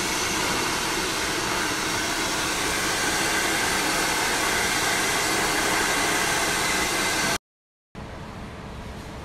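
Hair dryer blowing steadily, with a faint motor whine over the airflow, then cutting off suddenly about seven seconds in. After a brief silence a much fainter steady hiss follows.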